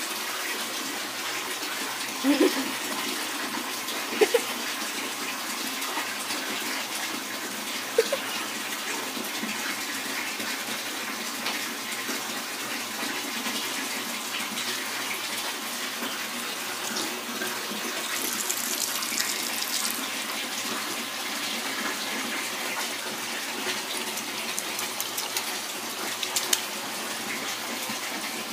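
Bathroom sink faucet running steadily into the basin, with a few brief louder sounds over it about 2, 4 and 8 seconds in.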